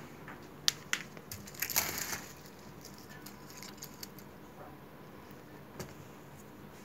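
Close handling noises: a few sharp clicks and a short dry crackle about one and a half to two seconds in, then a single click near the end.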